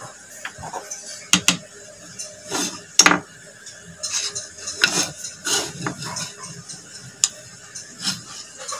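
Scattered knocks, taps and short scrapes as a teak board and a steel hand gouge are handled and set against each other on a workbench. The loudest sharp knocks come about one and a half, three and seven seconds in.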